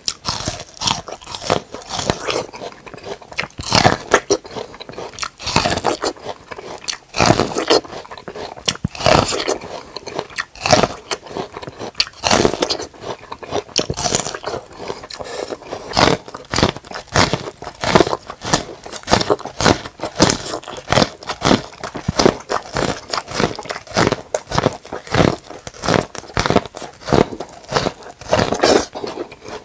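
Close-miked biting and chewing of super sweet corn on the cob: kernels crunching off the cob in many quick, repeated bites.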